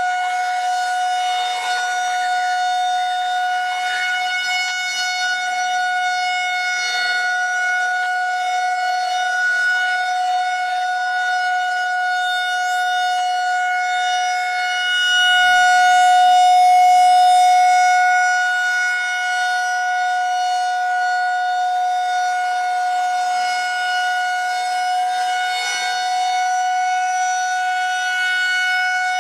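Federal Signal 2001-130 rotating electromechanical civil defense siren sounding a steady tone on its monthly test. The pitch holds level while the sound swells louder for a few seconds about halfway through.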